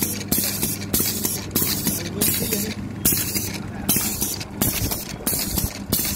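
Charcoal briquette press machine running: a steady motor hum under a rhythmic mechanical clatter and hiss, repeating about twice a second as it forms briquettes.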